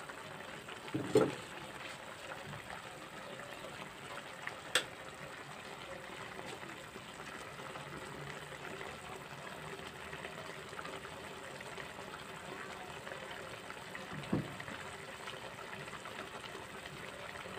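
Squid adobo simmering in a steel pot: steady soft bubbling of the vinegar-soy sauce, with a few brief knocks about a second in, near five seconds and near fourteen seconds.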